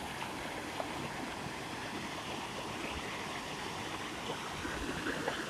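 Steady rushing of a waterfall, white water pouring over rocks.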